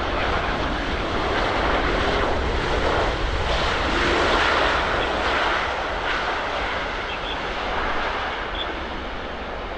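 Jet noise from a Boeing 787-8 Dreamliner arriving to land: a steady rushing roar that swells to its loudest about four seconds in and then slowly fades as the airliner passes.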